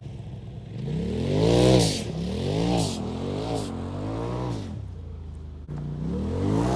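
Turbocharged Polaris RZR Turbo S engine blipped repeatedly, about four rising-and-falling revs. Each rev ends in a hiss from the aftermarket Trinity Racing blow-off valve venting boost as the throttle shuts. Near the end the revs build again.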